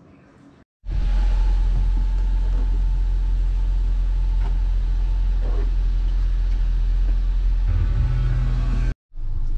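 Car engine idling, a steady low rumble heard from inside the cabin of the stationary car.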